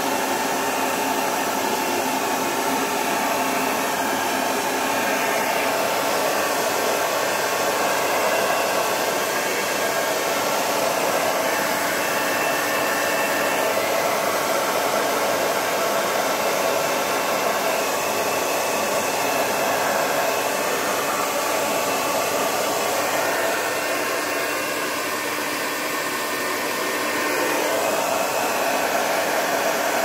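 Handheld hair dryer running steadily, blowing air, with a slight drop in loudness about 24 seconds in before it comes back up.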